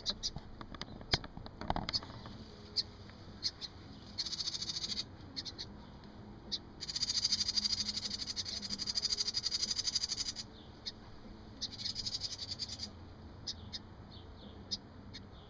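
House wren giving its alarm call: three bursts of rapid, buzzy chatter, the middle one about three and a half seconds long, with single sharp chips between, scolding someone too close to the nest box. A few knocks of the camera being handled near the start.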